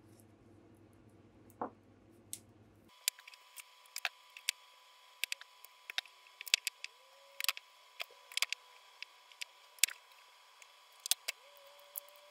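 Old PVC insulating tape being peeled and unwound by hand from a car wiring loom, giving irregular sticky crackles and sharp clicks that start about three seconds in.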